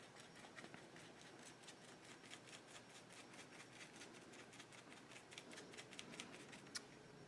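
Faint, irregular ticking of a small paintbrush dabbing white fluid acrylic into stiff textured fabric on a paper page, about three dabs a second, with one sharper tick near the end.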